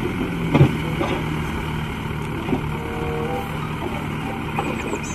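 Diesel engine of a small dump truck running steadily while its hydraulic hoist tips the bed to dump a load of soil, with a single knock about half a second in.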